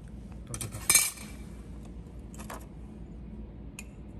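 Light metal clinks and clatter as a thin metal plate with welded nuts and a small screw are handled and set down on a metal workbench: the loudest clatter about a second in, another a little after two seconds, and a faint tick near the end.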